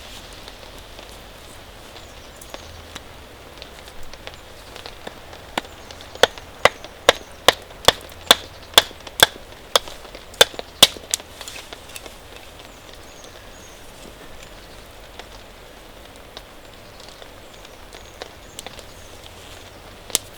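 Wood being chopped: a run of about a dozen sharp chops, roughly two a second, starting about five seconds in, over a steady background hiss.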